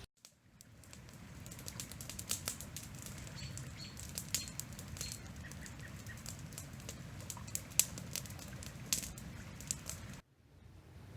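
Riverside ambience: the river's steady low murmur with scattered sharp clicks and a few faint bird chirps. The sound cuts off abruptly about ten seconds in.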